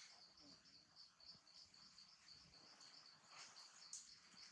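Faint insect chirping: a high-pitched, even pulse repeating about three times a second.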